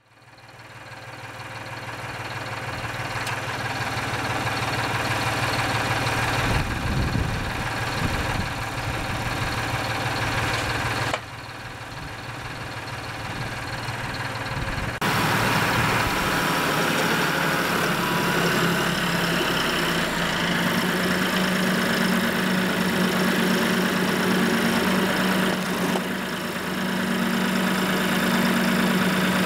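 Massey Ferguson tractor's diesel engine running steadily, its note higher and louder from about halfway through.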